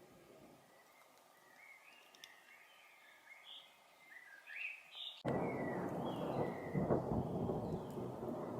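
A bird calling in short repeated chirps, then about five seconds in a loud rumble of thunder starts suddenly and continues, with the bird still faintly heard over it.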